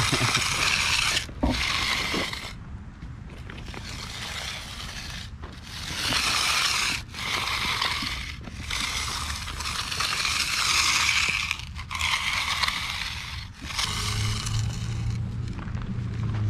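Steel hand edger scraping along the edge of wet concrete in repeated strokes of a second or two each, rounding the slab's edge against the form board. A steady low hum comes in near the end.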